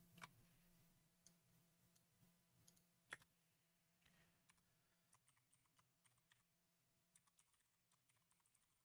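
Near silence with faint computer-keyboard typing: a single click just after the start and another about three seconds in, then a run of quiet key taps through the second half.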